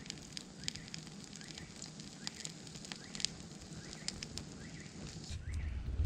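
Microwave oven on fire, the burning casing and contents crackling with irregular sharp snaps and pops. A low rumble comes in near the end.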